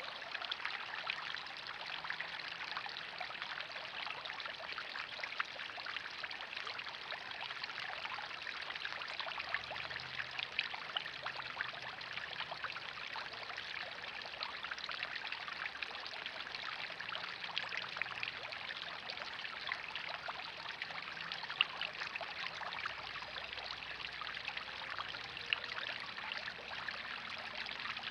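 Backyard pond water feature: a small waterfall spilling from an upper basin into the pond and a fountain splashing, a steady trickle with a fine patter of droplets.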